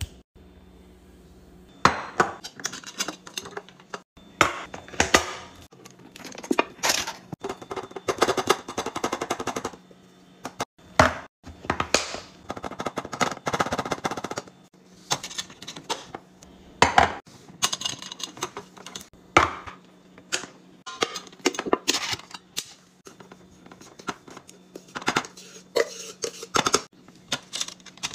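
Kitchen restocking sounds: glass jars and containers handled and set down with many sharp clicks and knocks. Ground coffee poured into a glass storage jar gives a steady rustle lasting a couple of seconds.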